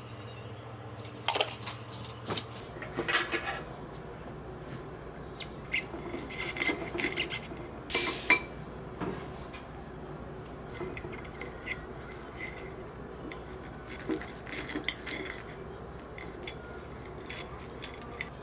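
Dishes and cutlery clinking and clattering: many short, scattered knocks and clinks, some with a brief ring.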